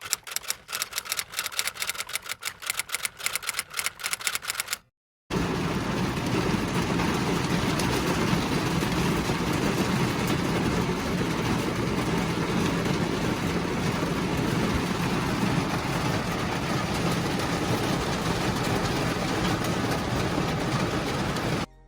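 About five seconds of rapid typewriter-like clicking, then, after a brief break, a steady rushing noise with a low hum, like a vehicle on the move, which cuts off suddenly near the end.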